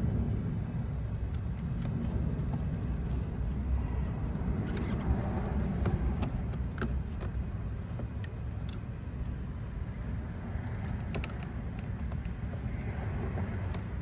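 Light plastic clicks and taps from a Toyota Tacoma power window switch panel being handled and seated in the door trim, a few scattered between about five seconds in and the end, over a steady low outdoor rumble.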